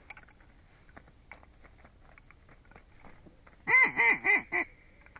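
Four quick, loud duck quacks in a row about three and a half seconds in, each rising and falling in pitch. Before them there are only faint clicks and rustles.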